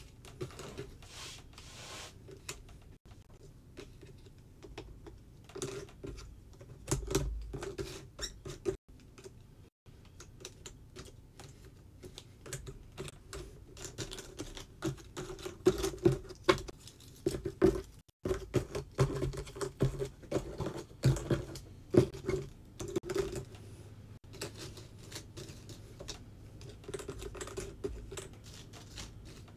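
Jigsaw puzzle pieces clicking, tapping and sliding as they are sorted by hand and set down on a puzzle board. The clicks are irregular throughout and come thicker and louder in the middle stretch.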